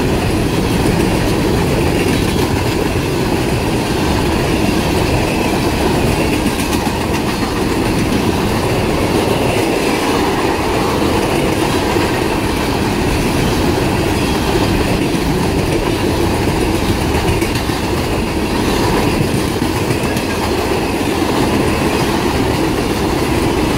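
Empty covered hopper cars of a freight train rolling past, a steady, loud rumble of steel wheels on the rails.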